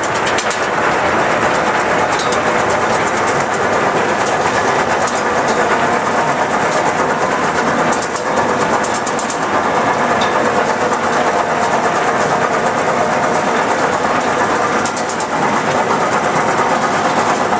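Olive mill machinery running: the intake hopper and conveyor carrying olives, a loud, steady mechanical din with light rattling on top.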